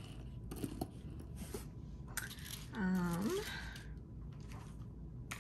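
A woman's short wordless hum, about three seconds in, its pitch dipping and then rising. A few faint small clicks come from earrings being handled and set down on a cloth.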